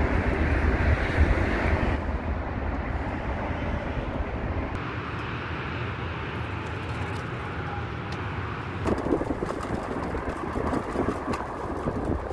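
Wind rumbling over the microphone of a moving bicycle. The low rumble eases a little under halfway through, and small clicks and rattles come in over the last few seconds.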